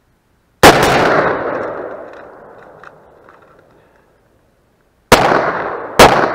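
Gunshots from an AR-15 rifle and a 1911 pistol. Two rifle shots come in quick succession about a second in, each followed by a long rolling echo. After a pause of about four seconds, two pistol shots follow nearly a second apart.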